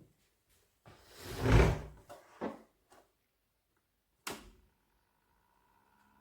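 Handling sounds of a small plastic mini fridge door: a soft thump about a second and a half in, then a couple of sharp clicks, like the door being swung and latched shut.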